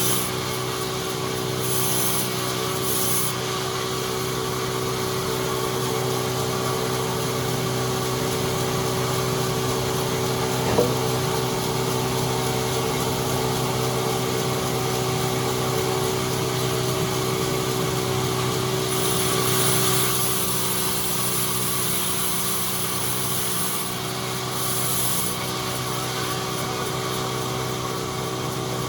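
Sawmill saw machine running steadily, with spells of high hiss as it cuts through wood and a single sharp knock about eleven seconds in.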